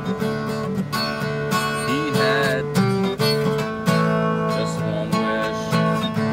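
Acoustic guitar strummed in a steady rhythm, with the chords ringing between strokes.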